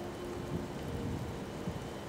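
The last echo of a train-horn blast dies away in the first moment, leaving a low, steady rumble of background noise with a few faint clicks.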